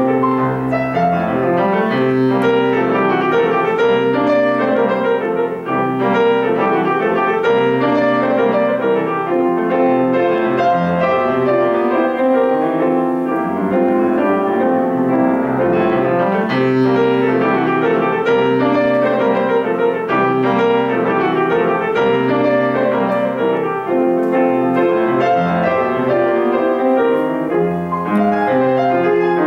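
Steinway grand piano played solo: a steady flow of dense passagework with many notes sounding together, at an even, loud level throughout.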